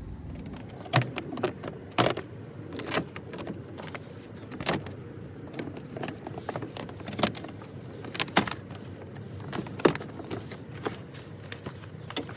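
The plastic moisture barrier on a car door's inner panel is being peeled off its tar-like adhesive. It makes an irregular crinkling rustle with sharp crackles and clicks every second or two.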